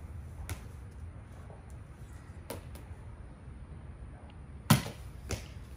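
Four sharp knocks of a rubber playground ball being pitched, hit and bouncing, the loudest near the end, over a steady low rumble.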